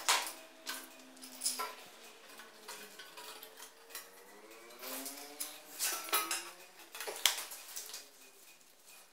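Metal hand tools clinking and clattering against a steel plate: a string of knocks, each with a short metallic ring.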